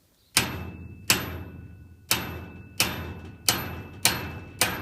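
A seized padlock being struck with a hammer: seven sharp metallic blows, about one every 0.7 seconds, each ringing briefly.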